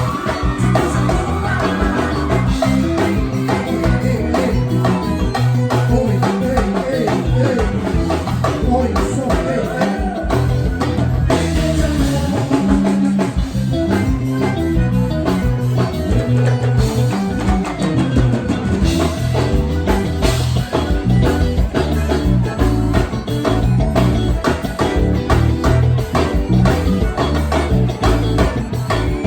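A live band playing forró gospel: electric guitar over a drum kit, with singing.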